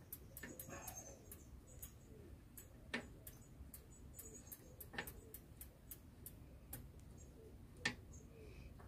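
Faint, irregular small clicks of a bicycle pedal being turned by hand against the crank arm's thread, which it refuses to catch. A few sharper clicks come about three, five and eight seconds in.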